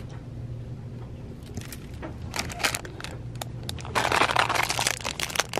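Clear plastic packaging of cheap toys crinkling as it is handled: short rustles from about two seconds in, then a loud, dense crinkle about four seconds in, over a steady low hum.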